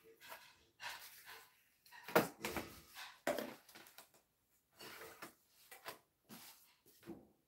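Pieces of cardboard being handled and slid over a wooden tabletop: a string of irregular scrapes, rustles and light knocks, the loudest about two seconds in.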